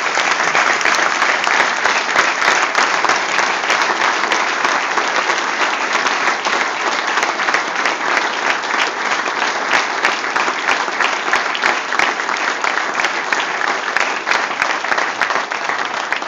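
Large audience applauding steadily and loudly, with many individual hand claps close to the microphone.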